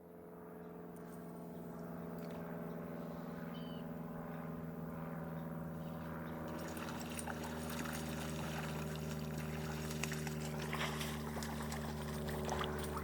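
Creek water running and trickling, fading in over the first couple of seconds, with a steady sustained drone of fixed tones underneath; the water noise grows rougher about halfway through.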